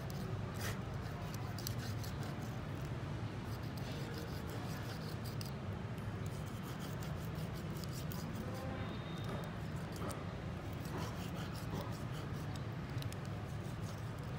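Knife cutting along a freshwater eel's backbone to free it from the flesh on a wooden board: irregular small clicks and scrapes, over a steady low hum.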